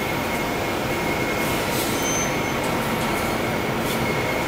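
Steady hum and hiss of SMT production-floor machinery, with a thin high whine held steady over it.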